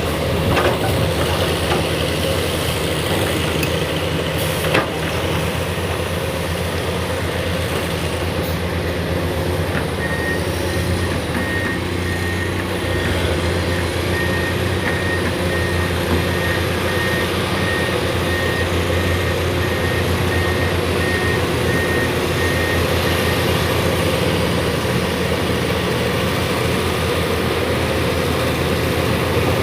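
Excavator's heavy diesel engine running steadily. In the middle a high alarm beeps in an even series for about thirteen seconds, then stops.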